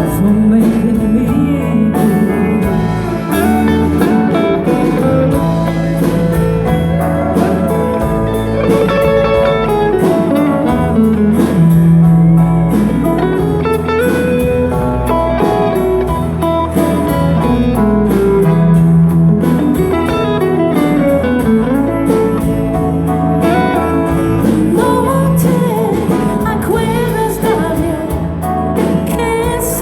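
Live band music with a steady drum beat and electric guitar, loud throughout.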